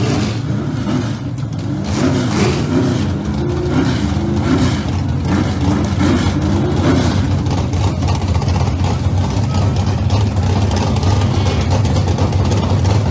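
A vehicle engine running at a steady idle, with muffled, indistinct voices over it for the first seven seconds or so.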